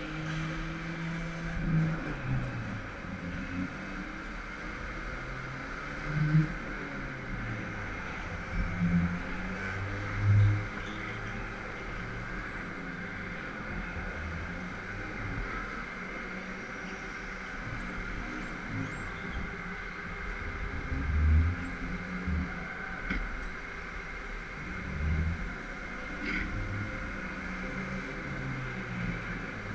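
Go-kart running at speed on an indoor track, heard from the driver's seat. The motor's pitch rises and falls through the corners, with a steady higher hum underneath.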